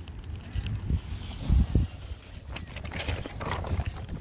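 Phone handled with its microphone rubbing against a cotton shirt: muffled scratchy rustling over low thumps, with a couple of heavier knocks near the middle.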